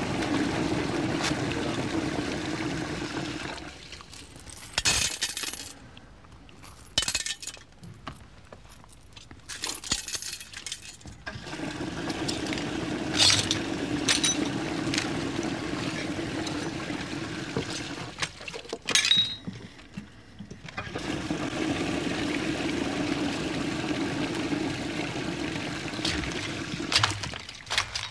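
Toilet flushing three times in a row, each a steady rush of water that dies away, with sharp clicks in the quieter gaps between flushes.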